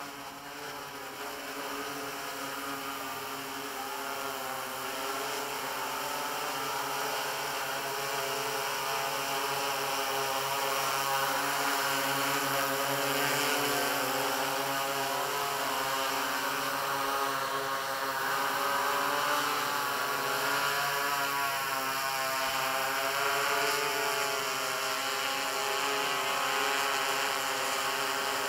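Yuneec multirotor drone's propellers whining in flight. The whine grows louder over the first ten seconds or so as the drone comes close, then holds. Its pitch wavers slightly as the rotors speed up and slow down.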